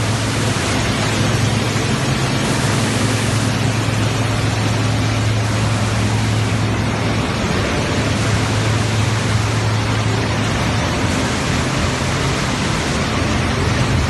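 PE film recycling and washing line running: a loud, steady machine noise with a low, constant motor hum.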